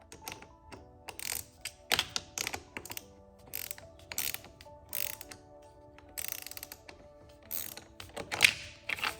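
Hand ratchet wrench clicking in repeated short bursts as bolts are worked, with the loudest burst near the end.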